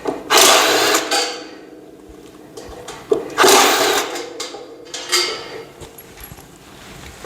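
Cordless drill-driver running in two short bursts, each about a second long, near the start and about three and a half seconds in, working screws on a TV stand's frame, with lighter knocks of parts being handled between them.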